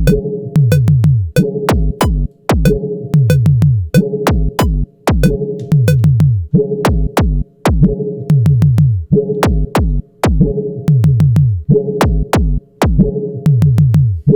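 A looping electronic drum beat built from audio-feedback recordings: kick, tom and snare hits made from feedback, the low tom hits falling in pitch, sharp clicky attacks, and a steady tone under each bar. The pattern repeats about once a second.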